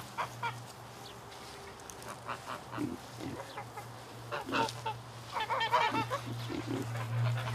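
Short honking animal calls: a few single calls, then a quick run of them about five and a half seconds in, over a steady low hum.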